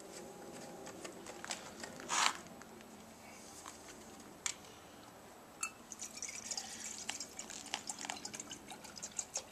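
Water poured from a canteen into a small cooking pot, trickling and dripping, with a few sharp clicks along the way and a denser patter of drips near the end.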